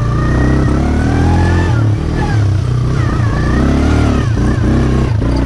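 Arctic Cat ATV engine running as the four-wheeler is ridden, its pitch rising and falling with the throttle and easing off briefly a couple of times near the end.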